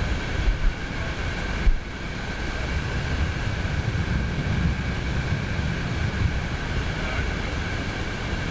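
Wind buffeting the microphone with an uneven low rumble, over the wash of small waves breaking on the shore, with a faint steady high whine behind it.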